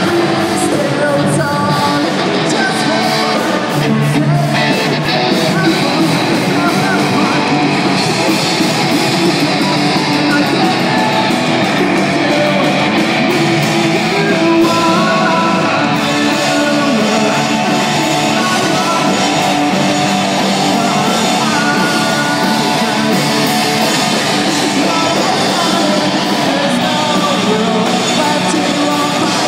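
Live rock band playing loud and without a break: electric guitars, electric bass and a drum kit, with a singer.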